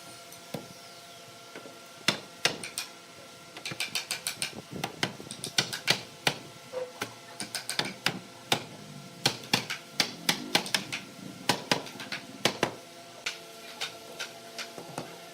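Series of sharp taps and knocks in woodwork, coming irregularly and in quick runs of about four or five a second, starting about two seconds in and stopping before the end. A faint steady hum lies underneath.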